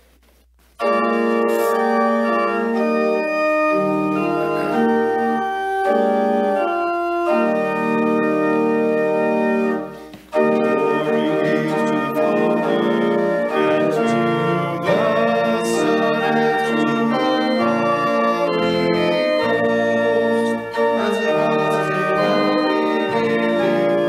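Church organ playing sustained chords, starting about a second in, with a short break near the middle.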